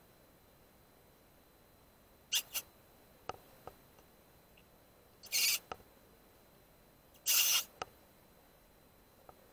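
Four short, harsh, hissy animal calls: two quick ones about two seconds in, then two longer ones of about half a second each. Faint clicks fall between them.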